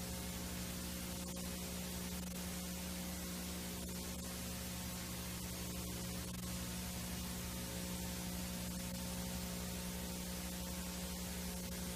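VHS tape playback noise: a steady hiss over a low electrical hum, with scattered faint clicks.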